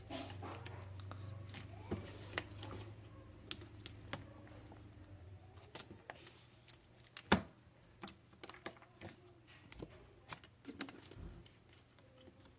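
Slime being squeezed and pressed by hand, making irregular small clicks and pops, with one louder pop about seven seconds in.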